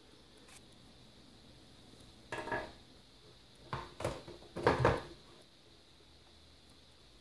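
Hard plastic quadcopter body knocking and clattering on a wooden tabletop as it is handled and turned over, in three short bursts of knocks a little over a second apart, the last the loudest.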